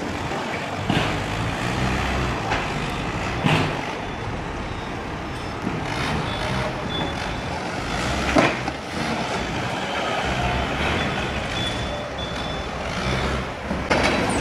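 Forklift engines running, with a few sharp metal clanks, the loudest about eight seconds in, and a few short high beeps midway through.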